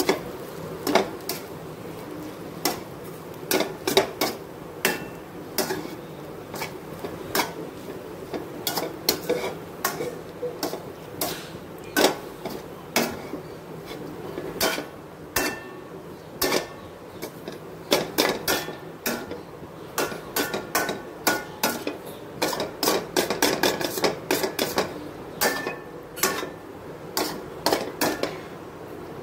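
Steel ladle clinking and scraping against a stainless steel kadai as cooked brown rice and vegetables are stirred, in many irregular knocks that come thicker in the second half. A low steady hum runs underneath.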